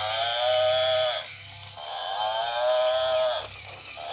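Battery-operated walking toy water buffalo playing a recorded moo through its small speaker. It gives two long lowing calls and starts a third near the end, over a steady high whine.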